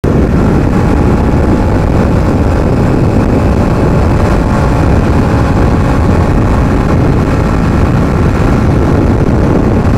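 Bajaj Pulsar NS200 single-cylinder motorcycle being ridden at a steady speed, its engine running evenly under a heavy rush of wind on the microphone.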